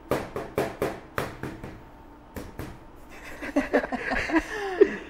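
An egg being tapped on the rim of a small ceramic bowl to crack it: about eight quick, sharp taps over the first two and a half seconds. Then laughter and a little voice to the end.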